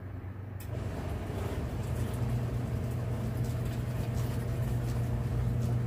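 Kuppet twin-tub portable washer's wash tub agitating clothes in rinse water: a steady motor hum with water churning, which starts with a click about half a second in.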